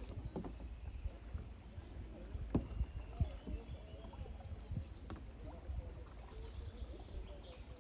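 Riverside ambience: a low rumble, several sharp knocks, faint distant voices and small bird chirps.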